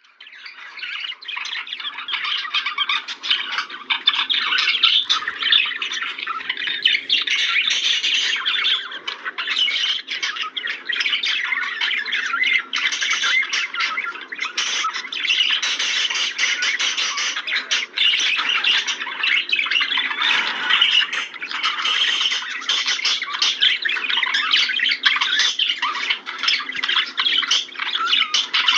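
Budgerigars chattering, warbling and chirping together in a continuous, busy stream of rapid calls.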